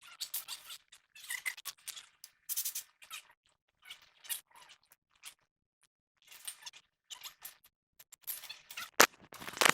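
Scattered scrapes and clicks of hand work on a truck's steering tie rod end as it is taken off, with a sharp click and then a quick run of clicks near the end.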